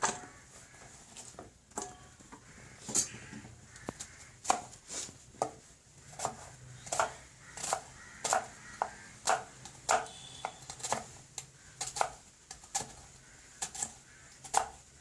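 Knife chopping food on a cutting board: a run of sharp, irregular chops, roughly one or two a second.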